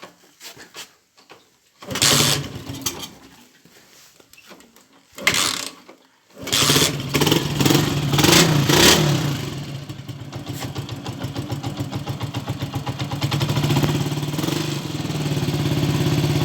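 Honda Titan motorcycle's single-cylinder engine being started: two short tries about two and five seconds in, then it catches about six seconds in, is revved a few times and settles into a steady idle.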